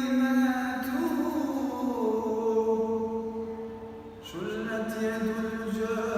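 A man singing an Arabic devotional praise song, with no instruments. He draws out long held notes that slide from one pitch to the next, and pauses briefly for breath about four seconds in.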